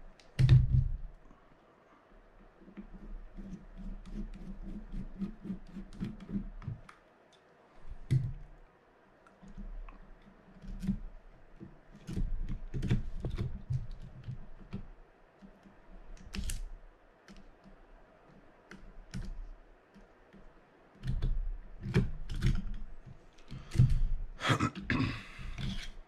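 Small metal parts and hand tools clicking, tapping and knocking on a workbench while a Penn Senator 4/0 (113H) fishing reel is worked on by hand. The clicks come irregularly with short pauses, the loudest knock about half a second in, and a brief scraping hiss near the end.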